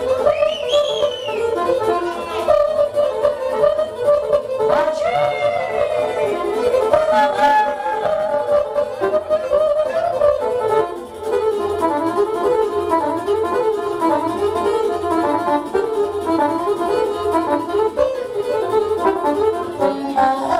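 Instrumental break of live Romanian folk party music: a fast, ornamented lead melody on an electronic keyboard over a steady dance beat.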